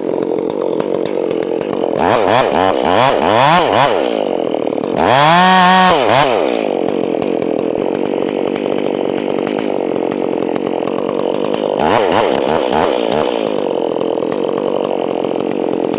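Chainsaw engine idling just after starting, revved up and back down in short throttle blips: a cluster of quick ones, one held for about a second, and a few more near the end.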